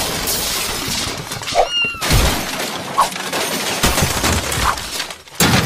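Cartoon sound effects of a house being wrecked from inside: a continuous din of crashing, smashing and breaking objects with glass shattering and several heavy thuds.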